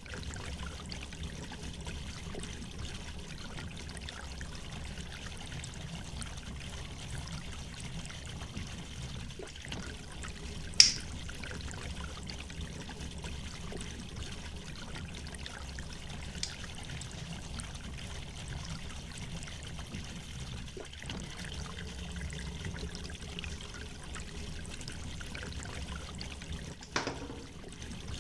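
Steady rushing background noise, with a single sharp click about eleven seconds in as a pocket lighter is struck, and a smaller click near the end.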